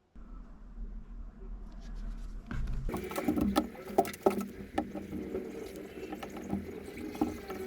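Rustling and irregular small clicks and taps of leather and tools being handled on a work surface, busier from about three seconds in.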